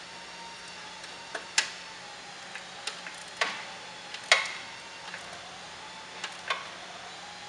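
Sparse, irregular metallic clicks and clinks from hand work on the shipping caging bolts of a self-adjusting truck clutch, about nine in all, the loudest a little past four seconds in.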